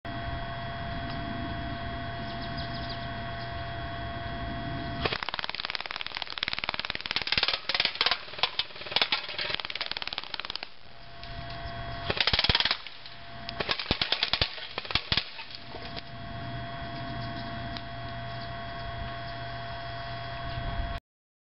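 Airsoft rifle firing on full auto in rapid bursts: a long string of shots starting about five seconds in, then a short burst and a few more quick bursts. A steady hum with a few faint steady tones fills the stretches before and after.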